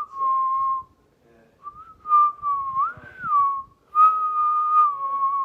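Whistling in a run of clear held notes, with a quick swoop up and back down about three seconds in and a long note near the end that dips slightly.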